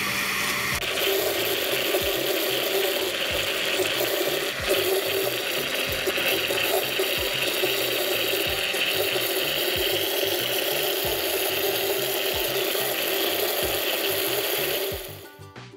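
Countertop blender running steadily at speed, grinding garlic cloves with water and cumin into a smooth paste. The motor cuts off near the end.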